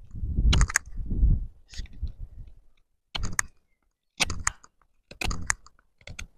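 Cudeman 145-L bushcraft knife shaving a point onto a wooden stick: short scraping cuts at about one a second. A low rumble sits under the first strokes.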